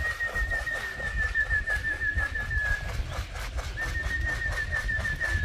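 Two long, steady trilling whistle notes, one after the other with a short break, over a rapid patter of faint ticks, at a pigeon loft as racing pigeons come home.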